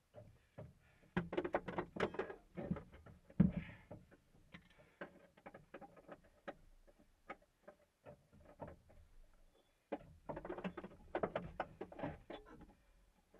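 Irregular rustling, clicks and knocks from the crew moving about inside the stopped rally car's cabin, busiest about a second in and again about ten seconds in.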